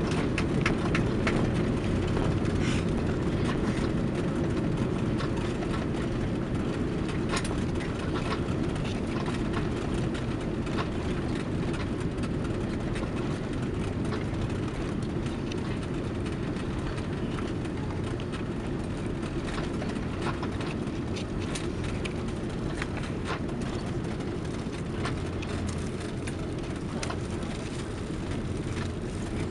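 Cabin noise of an Airbus A330-200 rolling out on the runway after touchdown, ground spoilers raised: a steady low rumble with occasional rattles, slowly fading as the aircraft slows down.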